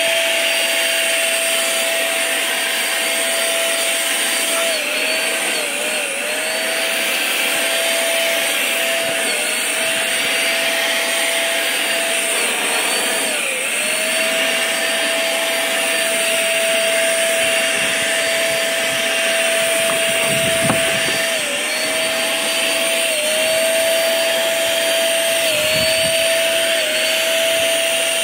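HomeRight Command Max HVLP paint sprayer running as it sprays: a steady turbine whine with rushing air, its pitch dipping briefly several times. A single click about two-thirds through.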